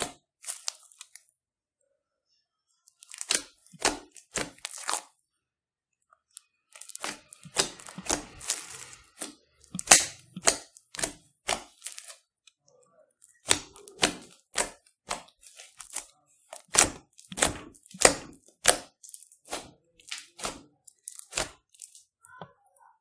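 Foam-bead slime (clear slime mixed with Play-Doh and foam beads) squeezed and pressed by hand, popping and crackling sharply in quick runs of crackles with short pauses between them.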